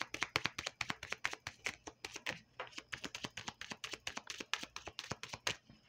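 Deck of oracle cards being shuffled by hand: a quick, uneven run of card clicks, several a second, that stops shortly before the end.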